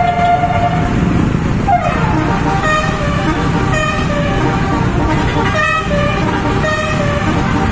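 Bus 'telolet' musical horn playing a tune of several notes that step from pitch to pitch, with a falling slide near the start, over a steady low rumble.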